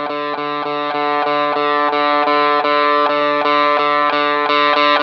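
Overdriven electric guitar through a Shark The Gain Drive-Booster pedal, its gain at the middle, with the same note picked again and again in a rapid, even rhythm. The pedal's tone knob is being turned while it plays.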